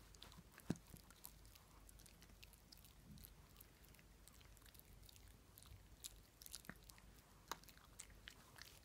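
A Shih Tzu chewing and gnawing: faint, scattered wet clicks and small crunches from its mouth, with one sharper click just under a second in.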